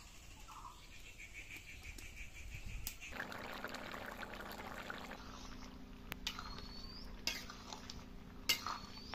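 Curry bubbling at a rolling boil in an iron kadai over a wood fire, a steady bubbling from about three seconds in. A sharp knock near the end, the ladle striking the pan as the curry is stirred.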